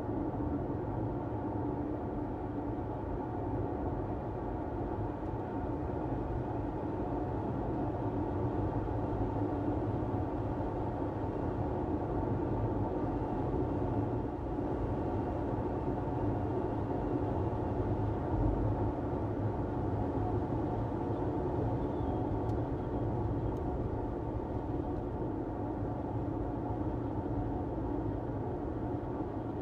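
Steady road and tyre noise from a car driving along a road, a low continuous rumble.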